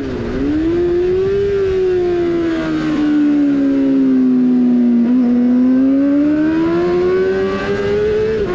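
Yamaha R6 (2003–2005 generation) 600 cc inline-four race bike at high revs, fitted with a GPR Furore exhaust. Its pitch dips and jumps back just after the start, sinks slowly for a few seconds, then climbs steadily again as the bike accelerates.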